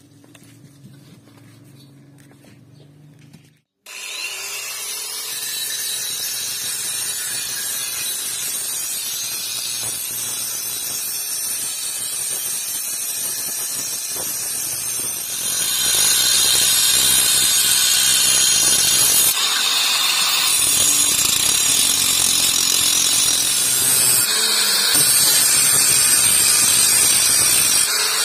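Electric angle grinder grinding the steel blade of a large hand-forged sword. It starts about four seconds in after a short, quieter stretch and runs steadily, growing louder about halfway through as it bites harder into the steel.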